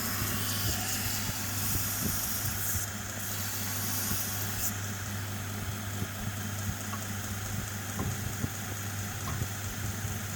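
Belt grinder running steadily: a constant motor hum with a high hiss from the moving belt, the hiss easing off about five seconds in.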